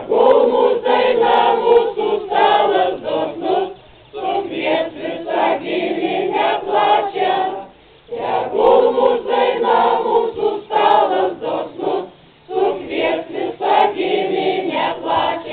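Mixed choir of older women and men singing a Lithuanian folk song without accompaniment, in phrases of about four seconds with short pauses for breath between them.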